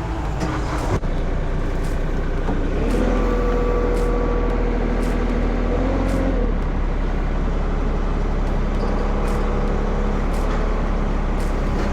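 Heavy diesel engine running steadily, its note rising and holding under higher revs for about four seconds before settling back. A single click sounds about a second in.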